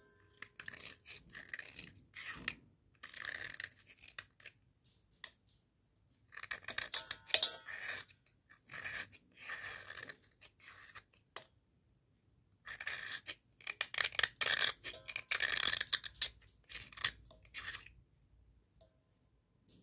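A wet, square slate pencil being scraped and cut with a blade, making quick gritty crunching scrapes. They come in three spells, with short pauses about six and twelve seconds in.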